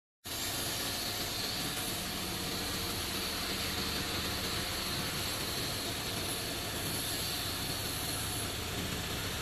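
Steady workshop machinery noise: an even hiss with a low hum underneath. It starts just after a brief dropout.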